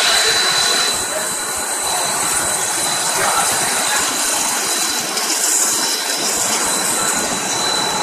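Twin-screw snack extruder production line running: a steady, loud machine noise with a thin high whine held over it.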